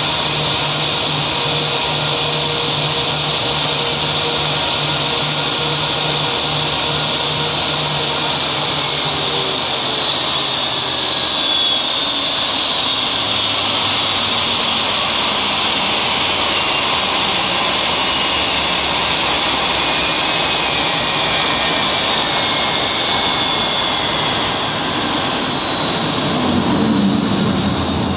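Airbus A319's IAE V2500 turbofans whining at idle as it taxis in. From about a third of the way in, the high-pitched whine slowly falls in pitch as the engines spool down after shutdown.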